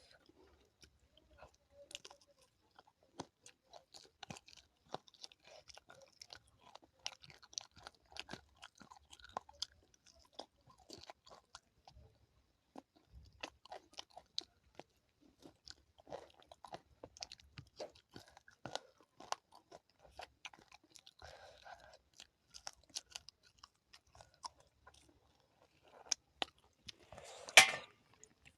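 Close-up eating sounds of a person chewing curry with rice: irregular wet mouth clicks and crunching bites. A single louder, noisier sound breaks in near the end.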